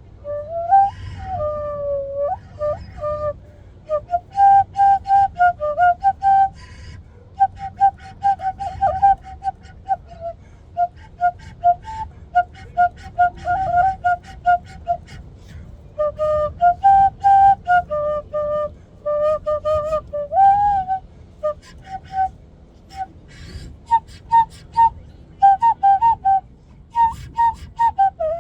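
Quenacho, a large Andean notched cane flute, playing a lively melody of short, separated notes with breathy attacks.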